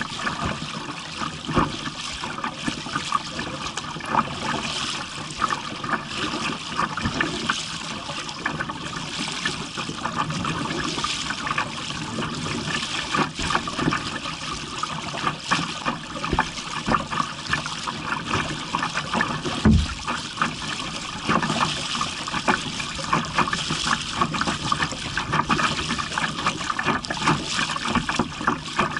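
Water lapping and splashing against a kayak's hull on choppy water, a steady wash broken by many small, irregular splashes.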